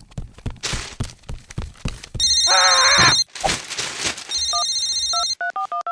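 Cartoon sound effects: a run of short soft knocks, then a mobile phone ringing with a loud electronic trill about two seconds in, a wobbling cartoon voice cry under it. It rings again, then plays a short beeping ringtone melody near the end.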